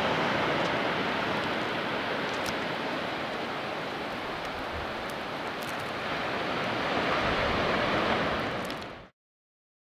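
Surf washing onto a sandy beach, a steady rush of waves with some wind, cutting off abruptly about nine seconds in.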